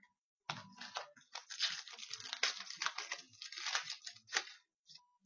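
A trading-card pack wrapper being torn open and crinkled by hand: a dense run of crackling and rustling for about four seconds, starting about half a second in.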